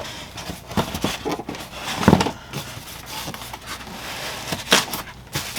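Handling noise: an irregular run of knocks, clicks and rustles as packaging and parts are moved about, with the loudest knock about two seconds in and another near the end.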